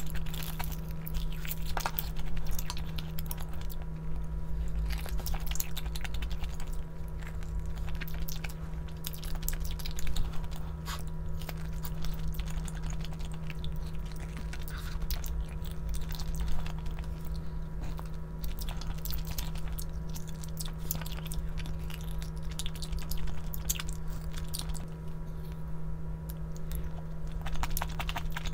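Close-up eating sounds: chewing and biting into kimchi-braised pork back ribs, with many small wet clicks and crunches, over a steady low hum.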